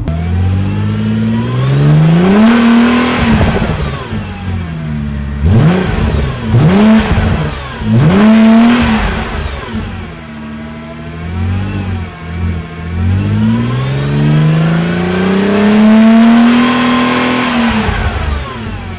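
A supercar engine revving hard, its pitch climbing and dropping again and again. There is a long climb at the start, three quick sharp revs in a row around the middle, and a slow, drawn-out climb that peaks and falls off near the end.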